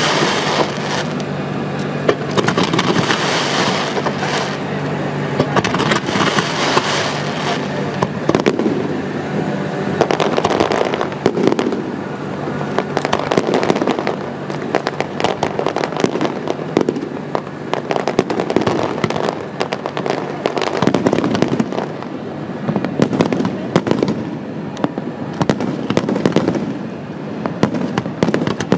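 Fireworks display: shells launching and bursting in quick succession, a dense run of bangs and crackling, with a loud hissing rush through the first several seconds.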